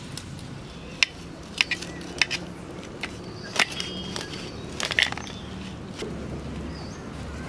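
A knife cutting salmon into steaks on a steel tray, the blade striking the metal in a string of sharp clinks, irregularly spaced, about seven in all, over the first five seconds.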